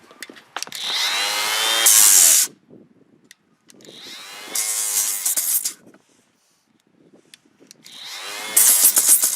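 DeWalt cordless orbital sander started three times. Each time the motor spins up, gets louder, then stops abruptly after about two seconds: the sander quits as soon as the pad touches something.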